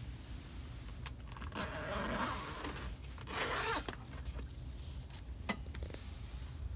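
Zipper on a fabric pet-carrier backpack being pulled open in two long rasping strokes, about a second and a half and three and a half seconds in, with a few sharp clicks of the zipper pull and carrier around them.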